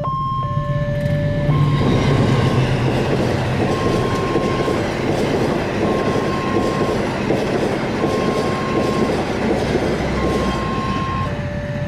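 Passenger train passing a level crossing at close range, its running noise building about a second and a half in and staying loud. Over it, the crossing's electronic warning alarm keeps sounding, alternating a higher and a lower steady tone.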